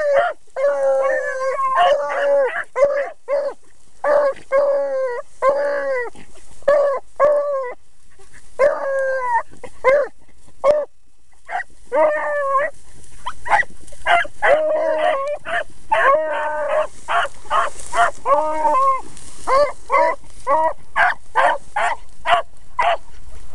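Hunting beagles baying on a scent trail: repeated drawn-out bays mixed with short chop barks, about two a second, with a brief break near the middle.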